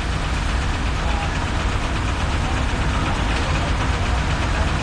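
Vehicle engine running, a steady low rumble with no pauses or changes.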